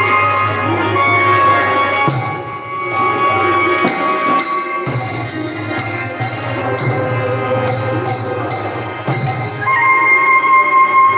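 Bengali kirtan ensemble music: a held melody line over a low drum, with hand cymbals struck about ten times in an uneven run from about two seconds in until shortly before the end, each strike ringing bright and high.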